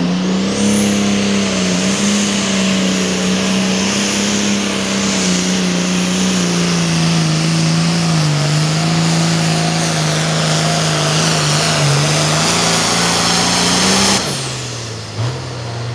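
International 1466 Hot Farm pulling tractor's turbocharged diesel held at full throttle through a pull, with a high whistle that rises as it launches and holds over the steady engine note. About 14 seconds in, the engine and whistle drop off sharply as the throttle is let off at the end of the run.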